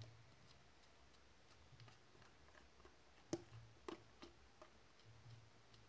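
Sticky slime being worked by hand, giving faint clicks with four sharp ticks in the second half, the first the loudest.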